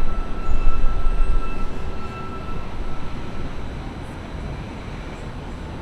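City ambience at night: a low, steady traffic rumble with a vehicle passing close and fading away over the first three seconds. A thin, high whine goes with it and dies out about halfway through.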